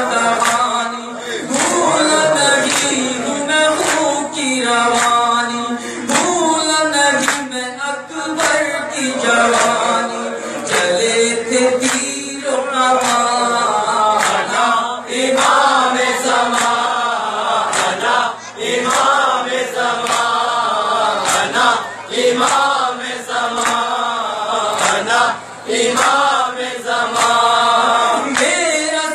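Men chanting a Shia nauha (mourning lament) into a microphone, with regular slaps of hands beating on chests (matam) keeping a steady beat about once a second.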